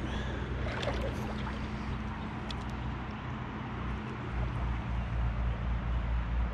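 Steady low rumble and hiss of outdoor river noise, with a few faint clicks about a second in and again a little later.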